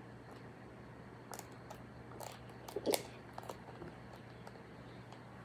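Faint handling noises of small toy pieces and packaging: scattered small clicks and crackles, with a few sharper clicks about the middle.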